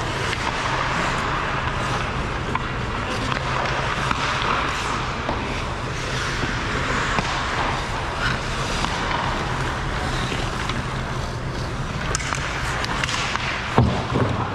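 Ice hockey skates scraping and carving across rink ice, with scattered sharp clacks of sticks and puck, over a steady low hum. A louder knock comes near the end.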